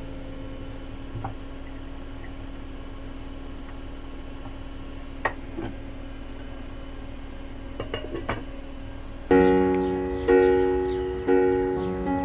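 A few light clinks of dishes and utensils over a low steady background tone, the sharpest about five seconds in and a small cluster near eight seconds. About nine seconds in, gentle piano-and-ukulele background music starts, with a clear note about every second.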